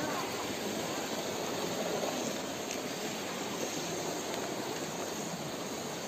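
Flowing water rushing steadily.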